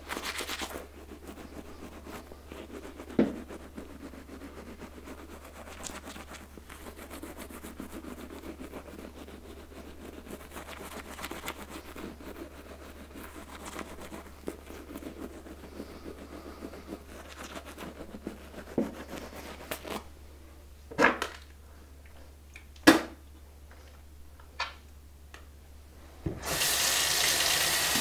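Toothbrush scrubbing teeth in a steady soft rubbing for about twenty seconds, followed by a few short sharp sounds at the sink. Near the end a bathroom tap is turned on and water runs steadily into the sink.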